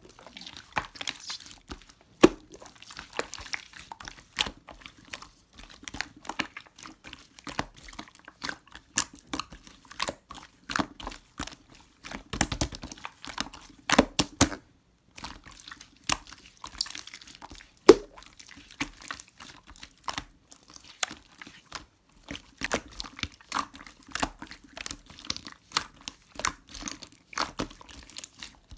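Close-up handling noises: a busy, irregular run of small clicks, taps and crinkles, with a little liquid sound, as food and its packaging are worked by hand.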